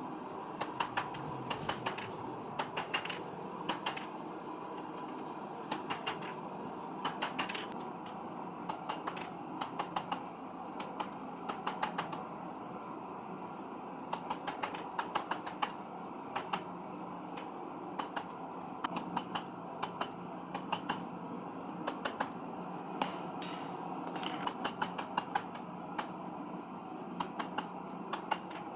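Blacksmith's hammer striking steel on an anvil in quick groups of two to five ringing blows, with short pauses between groups. A steady mechanical hum runs underneath.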